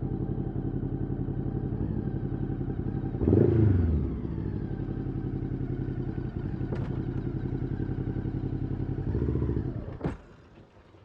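Motorcycle engine running steadily, with a short rev blip about three seconds in that falls back in pitch. There is a smaller rise near the end, then the engine stops abruptly with a click and the sound drops away.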